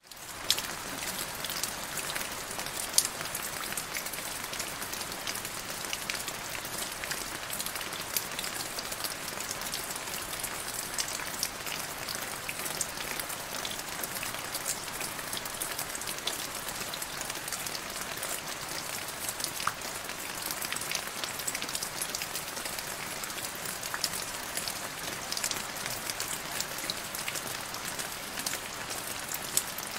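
Steady rain falling into a puddle: a constant hiss thick with many sharp individual drop splashes.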